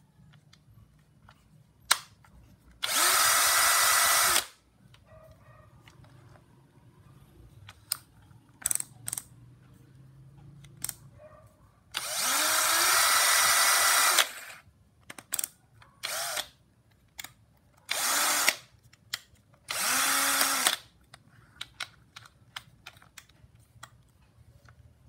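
Bosch GSB 180-LI 18V cordless drill run four times off load in short trigger bursts, the motor spinning up each time it starts. Small clicks fall between the runs.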